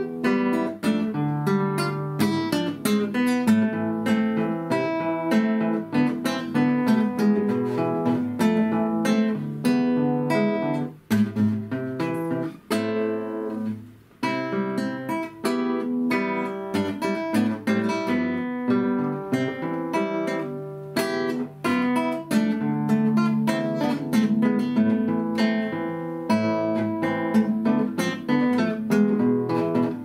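Solo nylon-string classical guitar played fingerstyle: a folk-song arrangement in quick plucked notes and chords, with a couple of brief breaks about halfway through.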